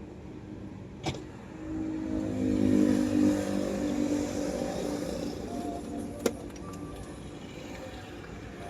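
Road traffic: one motor vehicle passes close by, its engine note building to its loudest about three seconds in and then fading into a steady background rumble of traffic. A sharp click comes about a second in, and another about six seconds in.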